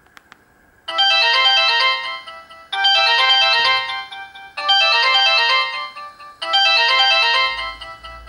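Samsung GT-E1200Y mobile phone ringtone: a short electronic melody phrase of about two seconds, repeated four times with brief pauses between. Two short clicks come just before it begins.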